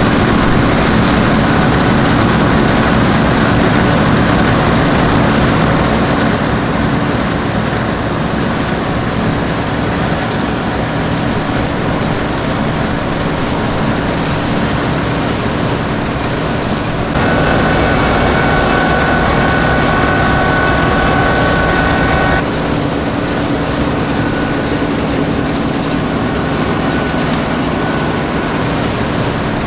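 Massey Ferguson 760 combine harvester's Perkins V8 engine running steadily while the combine harvests wheat, a low engine drone with a higher whine over it. A little past the middle the sound turns brighter and slightly louder for about five seconds, then settles back.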